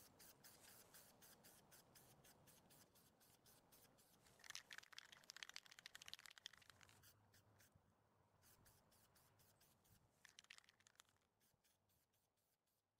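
Near silence: faint hiss of an aerosol spray can of primer in two short bursts, over a faint regular ticking about four times a second.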